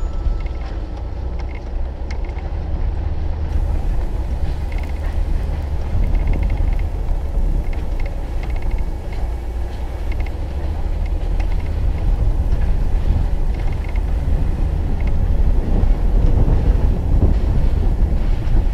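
4x4 off-road vehicle's engine running at low speed as it drives over a rough dirt trail, with a steady low rumble and rattling clatter from the body and suspension.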